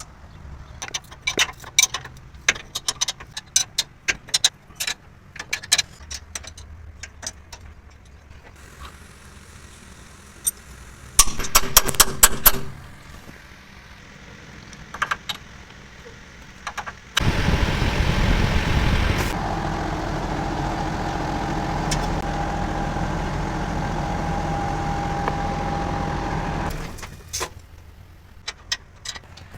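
Heavy-vehicle workshop sounds: metal tools and parts clinking and knocking, then a short burst of rapid metallic strikes. About two-thirds of the way through, a machine starts with a loud rush, runs steadily with a held hum for several seconds, and stops suddenly.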